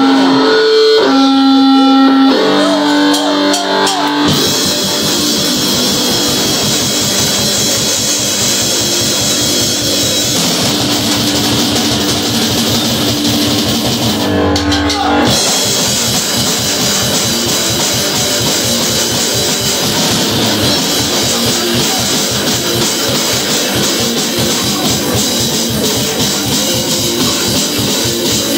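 Live rock band playing loud and fast: electric guitars, bass and drum kit. It opens with a few seconds of held guitar notes before the whole band comes in. About halfway through the band drops out briefly, leaving a low held note, then comes back in.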